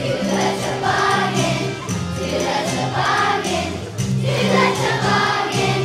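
Children's choir singing in unison, with instrumental accompaniment holding steady low notes underneath.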